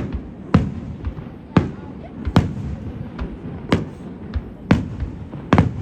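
Fireworks shells bursting in the sky in quick succession: about eight sharp bangs, roughly one every second, with a low rumble between them.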